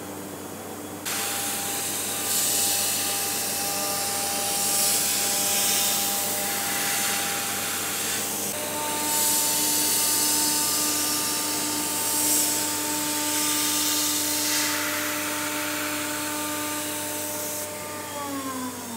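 Multicam 3000 CNC router spindle whining while a small end mill surfaces an aluminium block, under the hiss of an oil mist coolant spray. The hiss comes in about a second in, the whine steps up in pitch about halfway through, and it slides down near the end as the spindle slows.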